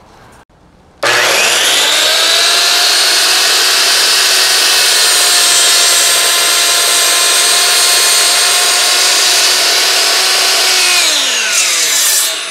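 Sliding compound miter saw starts about a second in, spins up to a loud, steady whine while cutting through a wooden board, then winds down with falling pitch near the end once the trigger is released.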